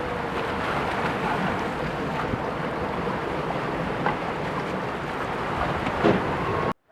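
Steady rush of wind and water from a boat under way, with wind buffeting the microphone; the sound cuts off suddenly near the end.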